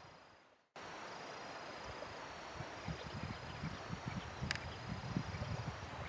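Rural outdoor ambience: wind gusting against the microphone over a steady hiss, with a faint high chirring on and off. The sound drops out briefly near the start, and there is one sharp click about four and a half seconds in.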